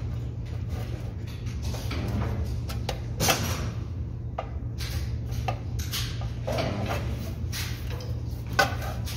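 Pedal-operated spot welding machine humming steadily and low, with two sharp clacks of its copper electrode arms closing, about three seconds in and again near the end.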